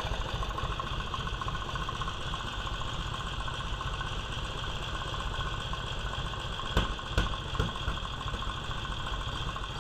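1946 Indian Chief's V-twin flathead engine idling steadily, with two sharp clicks about seven seconds in. The mechanic reads its popping as a tight valve, which he thinks might be an intake valve.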